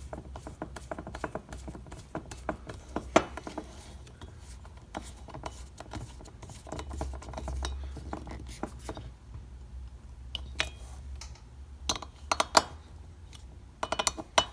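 Small metal hand tools and screws clicking and clinking against a chainsaw engine's parts as screws are driven in, with a few sharper taps.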